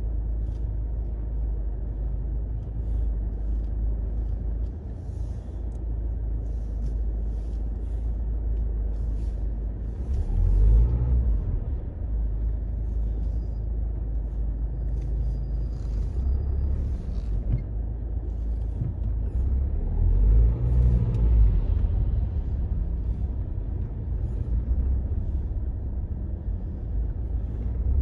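Low, steady rumble of a car in slow stop-start street traffic, swelling louder twice, about ten and twenty seconds in.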